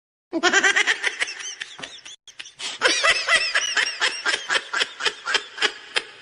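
A person laughing hard in two bouts, with a short break between them. The second bout is a long run of rapid ha-ha pulses that starts loud and gradually weakens toward the end.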